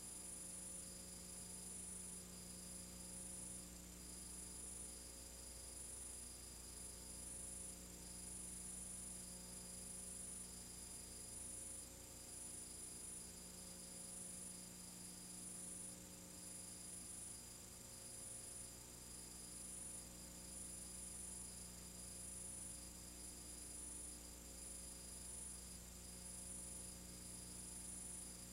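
Faint steady electrical hum and buzz with hiss and no other sound: the empty soundtrack of a silent film transfer.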